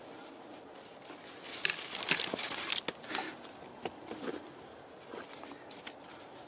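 Gloved hands working at the base of a wall of leaning wooden poles: rustling and crackling of sticks, bark and dry forest litter, with a few sharp knocks of wood. The busiest and loudest stretch comes about two to three seconds in.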